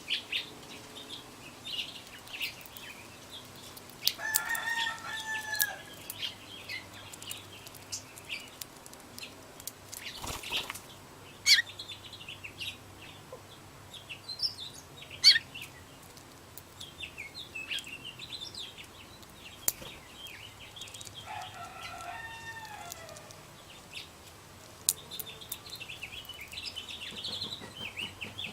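Small songbirds chirping in short scattered notes, with a rooster crowing twice in the background and a few sharp clicks.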